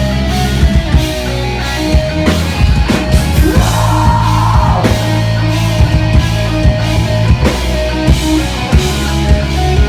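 Live rock band playing loud: drum kit hits over sustained bass and guitar chords, with a held higher note swelling up and fading about four seconds in.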